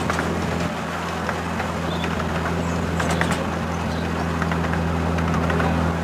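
Steady engine drone of a 10.25-inch gauge miniature railway locomotive hauling the train, heard from the carriage just behind it, with occasional light clicks and rattles from the running train.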